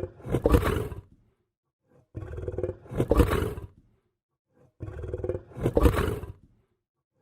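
Lion growling, the same growl repeated three times about two and a half seconds apart with brief silence between. Each growl starts lower and swells to a louder peak before cutting off.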